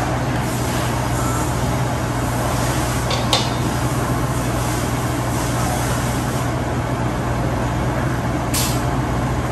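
Steady rush and low hum of a commercial kitchen's ventilation, with two brief clicks, about three seconds in and near the end, as mayonnaise is scraped from a cup into a stainless steel bowl.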